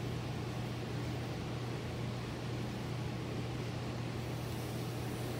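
Steady low electrical hum over an even hiss: aquarium equipment running.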